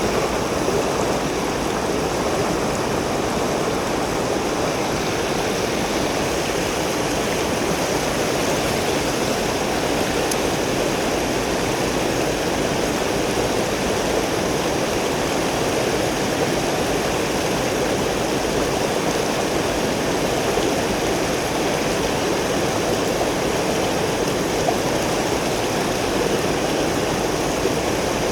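Mountain stream water rushing in a steady, unbroken wash.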